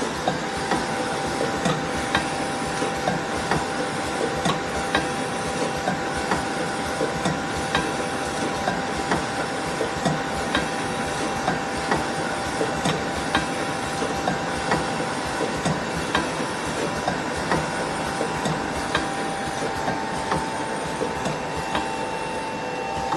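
Automatic two-nozzle auger screw filling machine running: a steady motor hum and hiss, with regular clicks about twice a second as it cycles.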